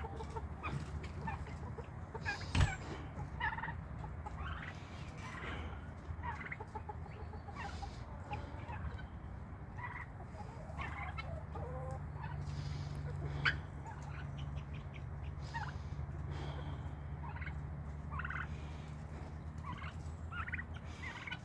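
Mixed backyard poultry flock calling: midget white turkeys gobbling among guinea fowl and chickens, in many short calls scattered throughout. A steady low hum runs underneath, and there is one sharp knock a few seconds in.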